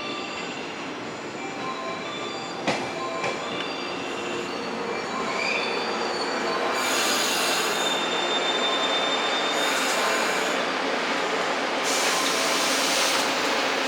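A four-car local electric train pulls into the station, its rolling noise growing over the first several seconds. A thin high squeal runs for a few seconds, and from about seven seconds in there are short bursts of hiss.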